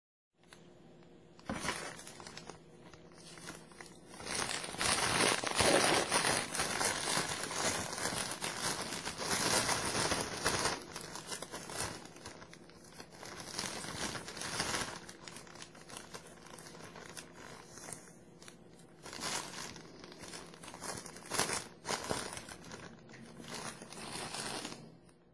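Plastic Ziploc bags crinkling and rustling as a bag of cabbage is handled and worked into a second bag, loudest in the first half, with a few sharp crackles later on.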